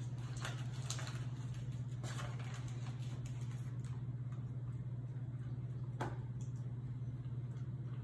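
Paper microwave popcorn bag crinkling and rustling over a dog's head as it noses and licks inside, in a few short crackles in the first couple of seconds and a sharper one about six seconds in, over a steady low hum.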